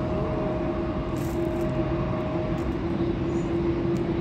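Steady jet aircraft engine noise: a broad rumble with a constant hum running through it.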